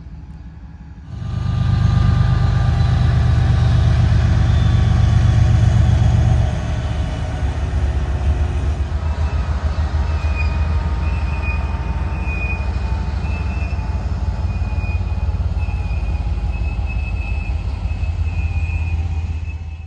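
A CSX freight train passing: a diesel locomotive's engine rumbling loudly for the first few seconds, then the steady rolling of the train's cars on the rails, with a thin high squeal joining about halfway through.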